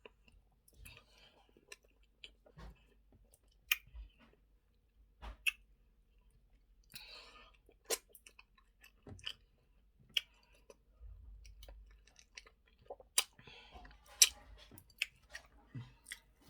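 A person chewing eba with okra soup close to the microphone: irregular wet mouth smacks and sharp clicks.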